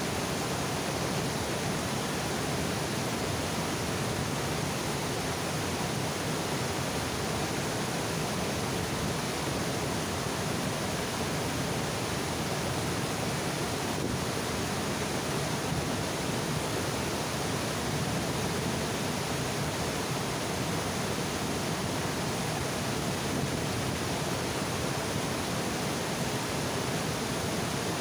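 Water overflowing a reservoir dam and pouring down the spillway, a steady even rush.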